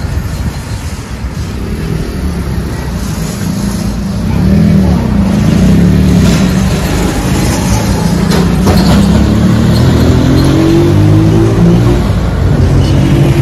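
Motor vehicle engine running close by on the street, getting louder about four seconds in, then slowly rising in pitch as it accelerates, over general traffic noise.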